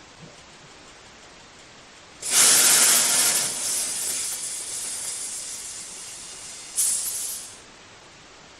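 Compressed air from a homemade air rifle escaping with a loud hiss. It starts suddenly about two seconds in and tapers off over several seconds, then a second, shorter burst of hiss comes near the end.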